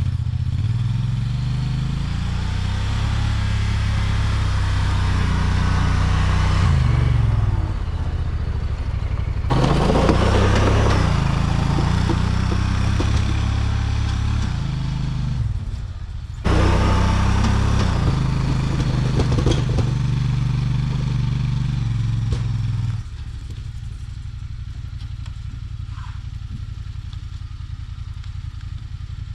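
Plow vehicle's engine working hard as it pushes snow, its pitch rising and falling with the throttle. It breaks off abruptly a few times, and near the end it settles to a quieter, steadier running.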